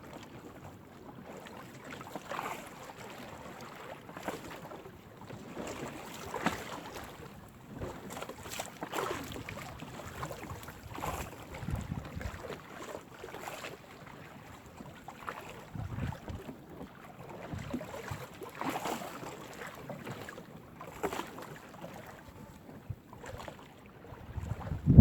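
Crab gill net being hauled by hand into a small fishing boat: irregular wet splashes and knocks every second or two, with wind buffeting the microphone.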